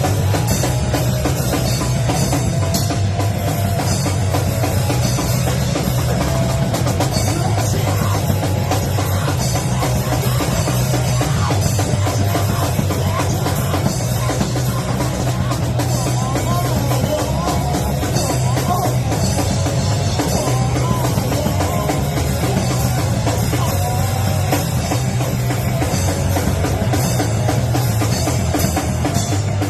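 A band playing loud rock music, with a drum kit prominent throughout.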